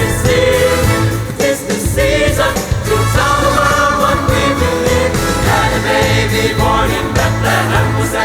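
Music: a song with singing voices over a steady low bass line.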